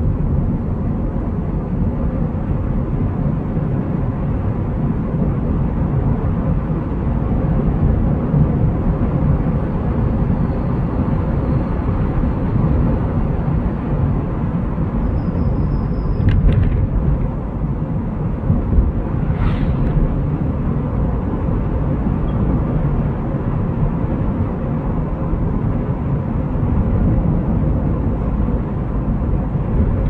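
Car driving on a paved road, heard from inside the cabin: a steady low rumble of engine and tyres, with two brief knocks a little past halfway.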